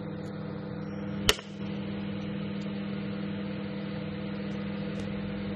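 Microwave oven running with a steady hum, with one sharp click about a second in.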